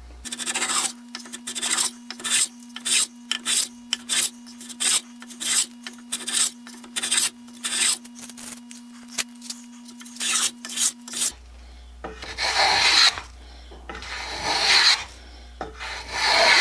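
Wooden-soled transitional hand plane shaving the edge of a straight-grain pine board, taking thin shavings. First a run of short, quick strokes about two a second, then three longer strokes near the end.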